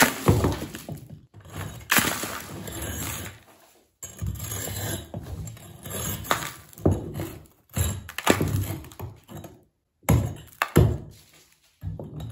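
Bricks and mortar being knocked out of a plastered masonry wall to open up a hole: irregular heavy knocks and cracks as chunks break loose and crumble down.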